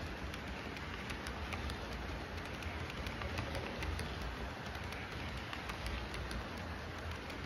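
HO scale model double-stack container train rolling past on the track: a steady rolling rumble with many quick, irregular clicks of its metal wheels on the rails.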